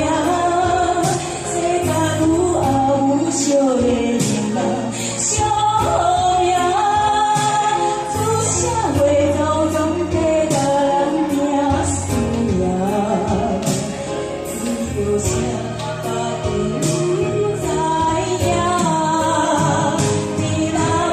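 A Taiwanese Hokkien ballad: a woman's voice singing over a backing track, with a steady bass beat.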